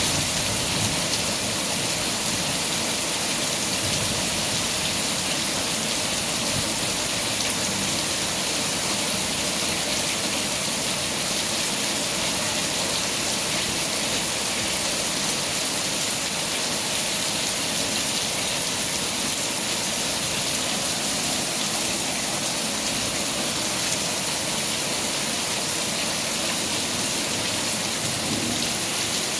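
Rain falling steadily: an even, unbroken hiss that neither builds nor eases.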